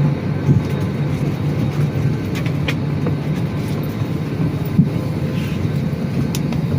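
Steady low hum of an airliner cabin during boarding, with a few faint clicks and knocks.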